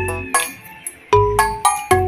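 Background music: bright, bell-like struck notes over a steady bass line.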